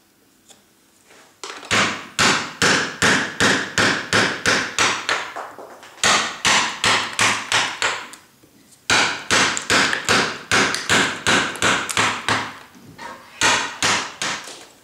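Carving mallet striking the handle of a wood chisel, driving it into limewood: quick, even taps about three a second, in four runs broken by short pauses.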